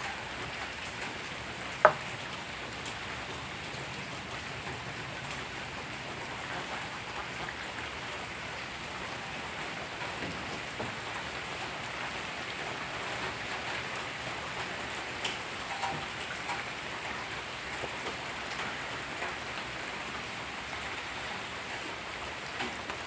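Steady rain pattering on the yard and its standing water, with a single sharp knock about two seconds in.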